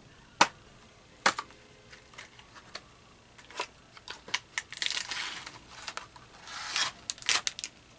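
A cardboard Pocky box being opened by hand: two sharp snaps near the start, then scattered clicks. From about halfway there are bursts of tearing and crinkling as the top flap is torn open and the plastic inner packet is pulled out.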